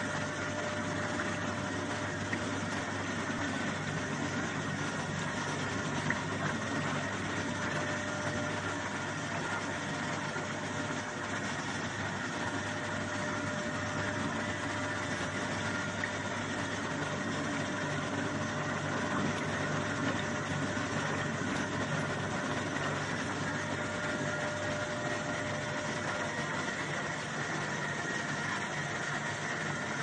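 Soybean washing machine for tempe running steadily, its motor and drive churning a tub of wet soybeans: a constant mechanical hum with a thin, unchanging whine.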